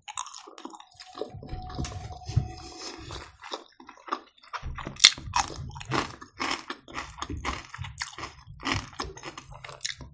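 Close-miked chewing of smoked chicken: a run of wet mouth clicks and smacks. A short steady hum comes in the first few seconds.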